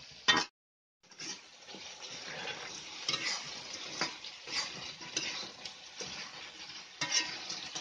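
Chili paste frying with a steady sizzle in a wok over a wood fire while a metal spoon stirs and scrapes against the pan, with light clinks. Near the start a brief loud noise is followed by a sudden half-second gap of silence.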